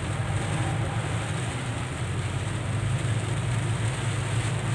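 Inside a moving car in heavy rain: a steady low drone of the engine and tyres on the wet road, under an even hiss of rain on the roof and windshield.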